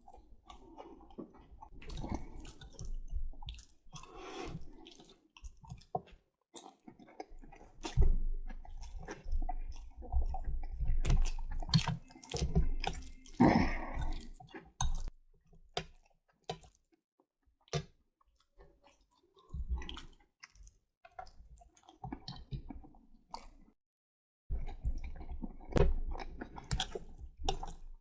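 Chewing of spaghetti and meatballs in red sauce: wet mouth sounds and sharp clicks in irregular bouts, with a few short pauses.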